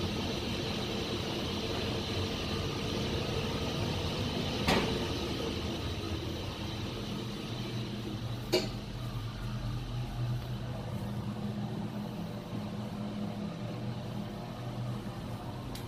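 Steady drone of a cruise ship's engine-room machinery and ventilation, carrying several constant hum tones. Two short sharp knocks, about five and about nine seconds in.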